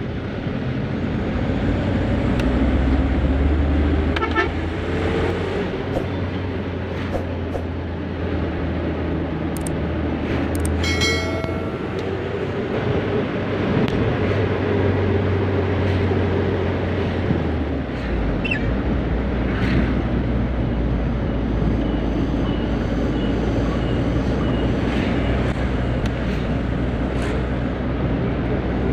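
Isuzu Elf minibus's tuned engine running under way on the road, its low drone shifting about two-thirds of the way through. A vehicle horn toots briefly about eleven seconds in.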